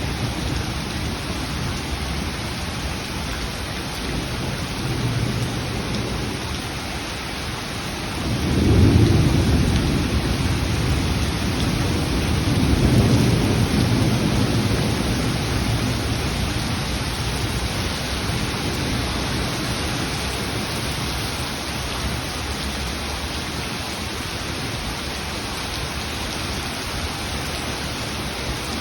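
Steady heavy rain falling, with thunder rumbling in twice: a loud peal about a third of the way in and a second rolling rumble a few seconds later that slowly fades back into the rain.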